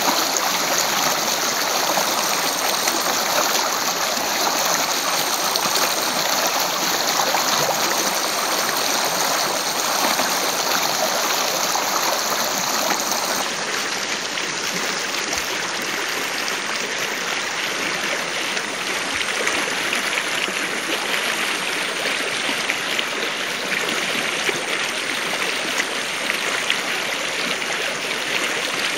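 Shallow stream rushing and splashing over rocks, a steady water noise that gets a little softer about halfway through.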